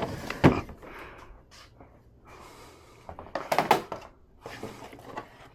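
A few sharp knocks and a short clatter of objects being handled and set down on a workbench, the loudest cluster a little past the middle.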